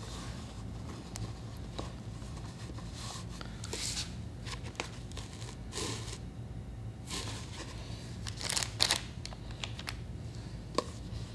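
Soft rustles and a few light knocks of hands working clay coils and shifting a board on a table, over a steady low hum.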